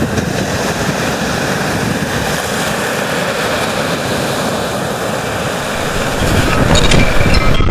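Wind-driven lake waves breaking and washing up a pebble beach in a steady surf wash, with wind buffeting the microphone. The low wind rumble grows stronger about six seconds in.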